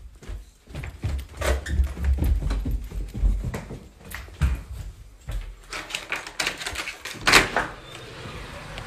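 Thumps from bare footsteps and rubbing and knocking from handling the phone while walking indoors. A door opens with a sharp knock near the end.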